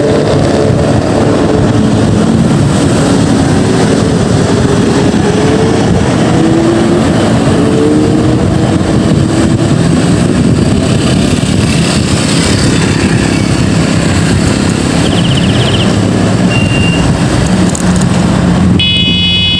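Road vehicle riding through traffic: steady engine and road noise with a few rising and falling engine notes, and a brief high, steady tone just before the end.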